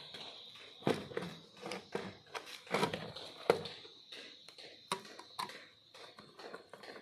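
Irregular clicks, taps and rustles of stripped wires being handled and worked into the screw terminals of a plastic relay socket, with a screwdriver meeting a terminal screw near the end.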